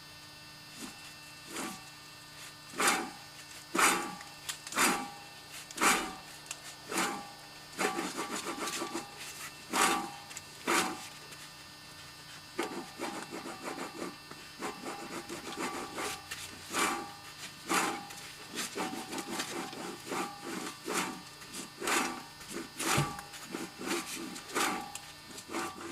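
A worn wheel bearing on an Audi A4 Quattro grinding: a rasping scrape that comes round about once a second, with fainter scrapes between, over a faint steady hum.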